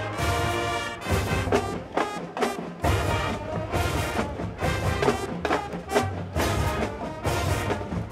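Large marching band playing: brass with drums, a held chord, then accented hits to a steady beat.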